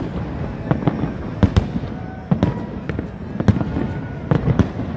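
Fireworks display going off overhead: an irregular, rapid string of sharp bangs and crackles.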